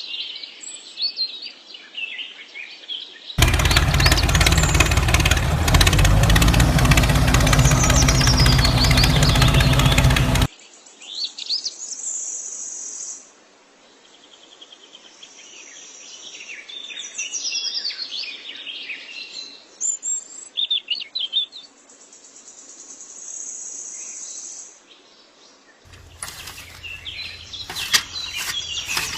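Birds chirping and calling with short, high, repeated notes. About three seconds in, a loud, steady noise covering the whole range from low to high drowns them for about seven seconds and then stops abruptly. A quick run of sharp clicks comes near the end.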